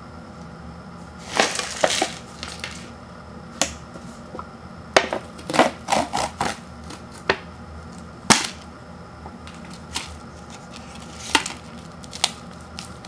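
Paper lid of an instant ramen cup being peeled back and the cup handled, then a foil seasoning packet lifted out, in short, irregular crinkles and crackles.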